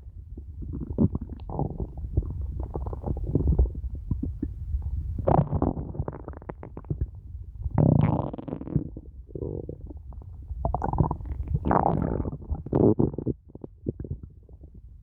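A very hungry person's stomach growling in a run of irregular rumbles. The loudest come about five, eight and twelve seconds in, and it quiets down near the end.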